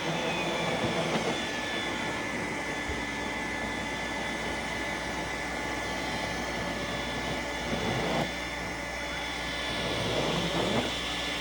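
iRobot Roomba s9+ robot vacuum cleaning carpet: its suction motor running steadily, a rushing noise with a steady high whine over it, very noisy.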